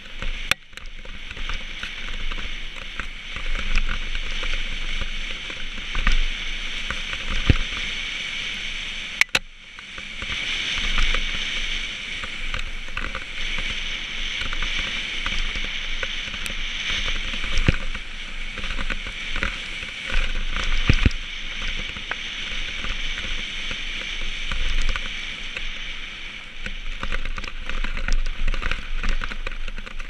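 Mountain bike descending a dirt and gravel singletrack, picked up by a helmet-mounted camera: steady tyre and trail noise with occasional sharp knocks and rattles from the bike over bumps. About nine seconds in it goes briefly quieter.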